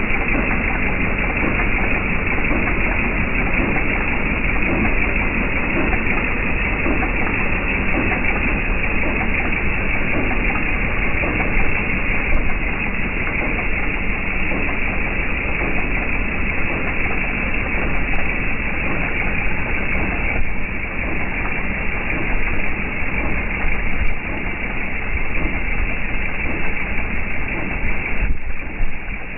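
Jeep Wrangler TJ's 4.0-litre inline-six engine running steadily at close range, with a dense, fast ticking-knocking texture: the knocking noise being tracked down. It gets a little quieter about 20 seconds in and again near the end.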